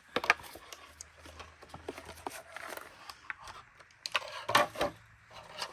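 Scattered clicks and knocks of plastic vacuum parts and wiring being handled as a wire is pulled out of the switch housing, with a louder cluster of knocks about four seconds in.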